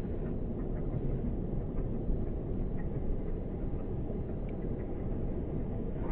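Steady low rumbling outdoor noise with no clear pitch, with faint short chirps here and there.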